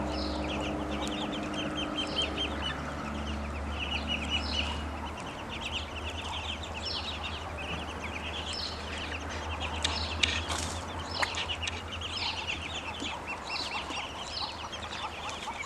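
A group of ducklings peeping, many rapid high-pitched peeps overlapping without a break, over a steady low hum.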